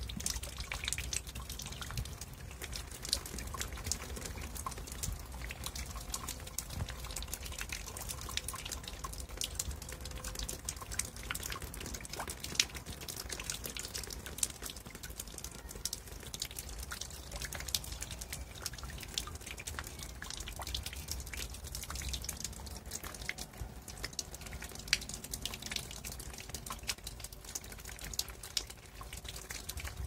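Large water drops falling into a shallow puddle, splashing in a quick, irregular patter.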